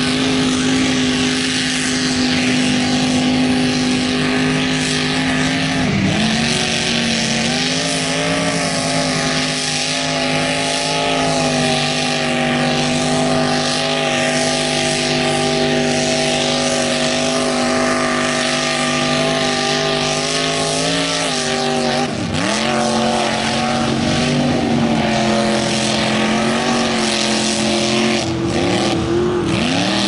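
Lifted mud-bog trucks' engines held at high revs while pushing through a mud pit, over the rush of spraying mud and water. The engine pitch stays nearly steady, then drops sharply and climbs back twice, about six seconds in and again past the twenty-second mark.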